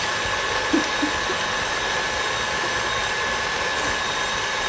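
KitchenAid Artisan stand mixer running steadily with its wire whip, whipping eggs and sweetener: an even motor whine with a faint high hum.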